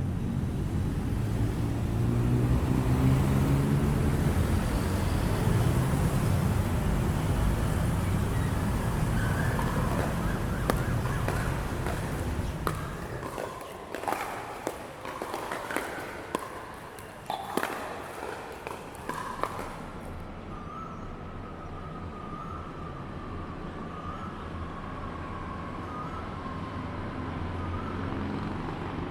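Heavy, slow city traffic rumbling at a busy intersection, with surges. It gives way to the sharp knocks of pickleball paddles hitting balls amid crowd chatter on a covered court. Then comes the distant hum of a city heard from high up, with a faint siren wavering over it.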